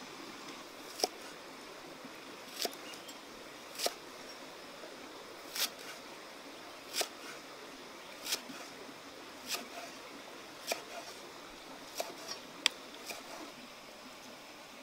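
Cleaver chopping spring onions on a thick wooden chopping block: about a dozen sharp knocks, roughly one every second and a half, coming closer together near the end, over a faint steady hiss.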